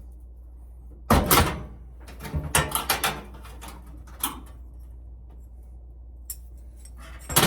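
Clunks and clicks of a Maytag washer's front-cabinet retaining tabs being popped loose: one loud clunk about a second in, a quick run of clicks and knocks soon after, and a couple of single clicks later, over a steady low hum.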